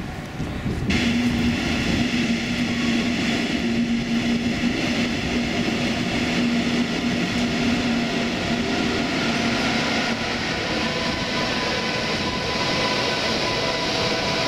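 A DB Class 101 electric locomotive hauling an Intercity train pulls into the platform, its rolling noise swelling about a second in. Steady humming tones run over the running noise for most of the approach.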